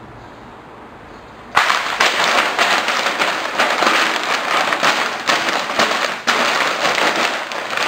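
A sheet of drawing paper being crumpled by hand: dense, loud crackling that starts suddenly about one and a half seconds in and goes on without a break.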